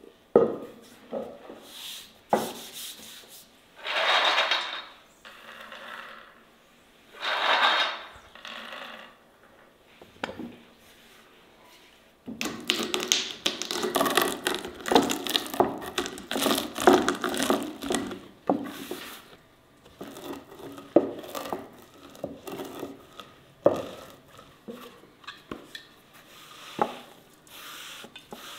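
Food-preparation handling sounds: utensils and dishes knocking, clinking and scraping. There are two short rustling bursts, then a busier stretch of clattering and scraping from about twelve to eighteen seconds in.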